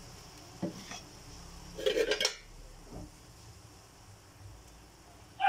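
Metal spatula knocking and scraping against a metal wok while stirring pork steak in sauce: a few light clinks, a louder cluster of clanks about two seconds in, and one more knock a second later.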